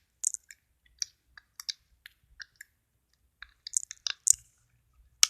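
Glossy, jiggly homemade slime being squished and poked by hand, giving irregular small clicks and pops, with a louder cluster about four seconds in and a sharp pop near the end.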